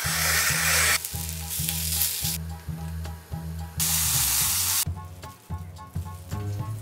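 Short cooking sounds in quick succession: a rotary drum grater shredding potato for about the first second, then shredded potato sizzling in an oiled pan as it is stirred, with a loud burst of sizzling a little before the halfway point. Background music with a steady beat plays underneath.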